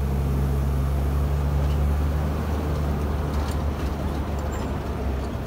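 Safari ride truck's engine running as it drives along, heard from aboard: a low steady drone that eases slightly about three seconds in.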